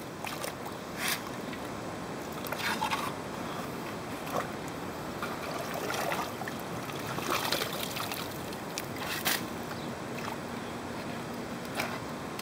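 Shovel digging in wet mud and gravel: a handful of separate scrapes and wet slops of the blade, spread out over a steady background hiss.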